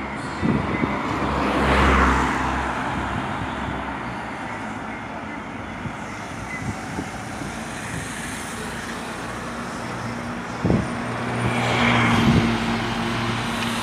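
Road traffic going by: a steady hum of engines and tyres, with vehicles passing close about two seconds in and again near the end, and a couple of short thumps.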